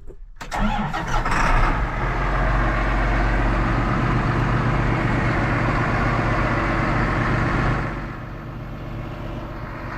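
John Deere 8300 tractor's six-cylinder diesel engine running as the tractor drives off. It starts about half a second in and stays loud and steady, then drops in level near the end.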